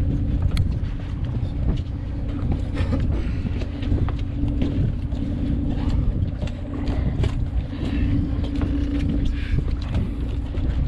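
A boat's machinery running: a steady low rumble with a constant hum, and a few light clicks and knocks over it.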